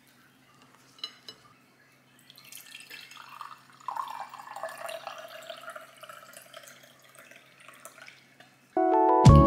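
Water poured from a bottle into a glass tumbler, a steady splashing pour of about six seconds that starts about two seconds in. Guitar background music comes in near the end.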